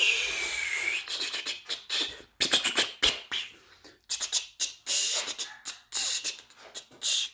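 Sanding dried compound: a run of short, rough rasping strokes with brief gaps between them, in an uneven rhythm. A thin high tone dips and rises in the first second.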